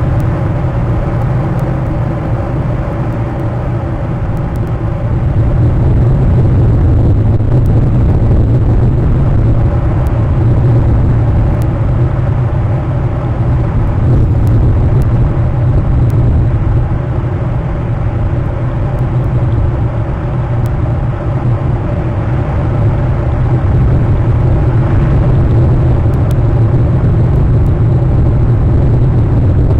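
Steady, loud low rumble of outdoor background noise picked up by the nest camera's microphone, with no distinct events.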